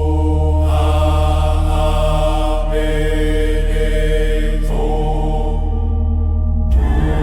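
Meditation music: Tibetan bells ringing and overlapping over a deep steady drone. New tones enter about a second in and again past the middle, and a sharper strike comes near the end.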